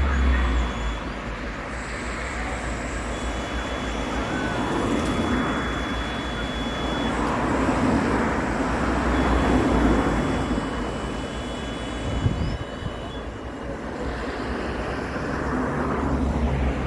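EMD 16-710-G3 turbocharged two-stroke V16 diesel of an SD70-series locomotive running at idle, a steady deep rumble that swells louder for a few seconds in the middle.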